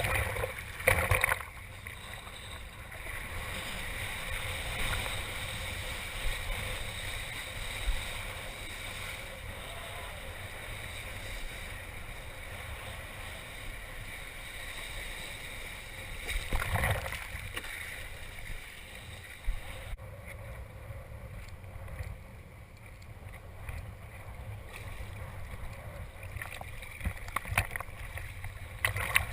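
Strong wind rumbling on the microphone over rushing, splashing water while kitesurfing, with louder surges about a second in and again about seventeen seconds in.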